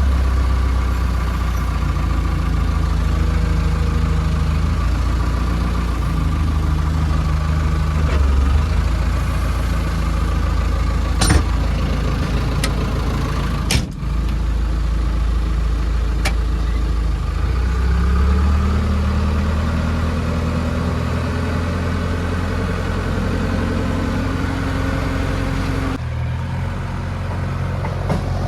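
JCB 3DX backhoe loader's diesel engine running under working load. Its speed climbs slowly in the second half and drops near the end. A few sharp knocks come in the middle.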